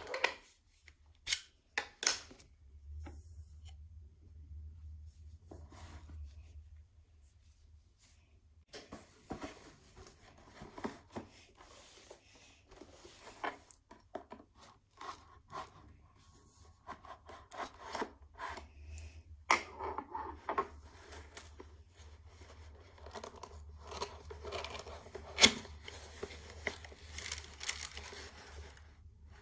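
Packaging being opened by hand: cardboard and plastic tearing, rustling and scraping, with scattered sharp clicks and knocks, a loud one a little before the end.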